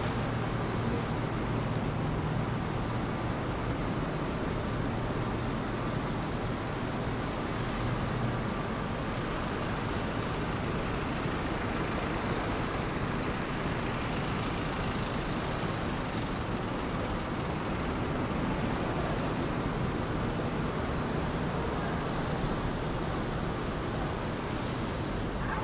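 Steady city street traffic noise, with motor vehicles passing. A low engine hum sits under it for roughly the first eight seconds, then fades.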